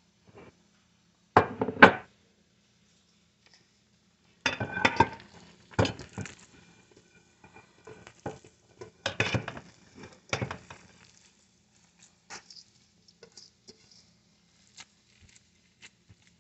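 Stainless steel mixing bowl clattering and scraping against a ceramic casserole dish as moist stuffing is scooped from it by hand. There are several loud clatters, the first about a second and a half in, with quieter shuffling and small knocks between them.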